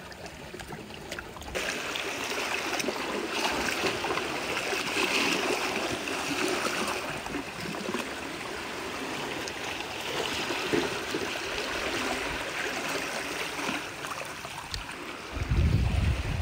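Seawater running among shore rocks, a steady watery noise that comes up about a second and a half in. Wind buffets the microphone near the end.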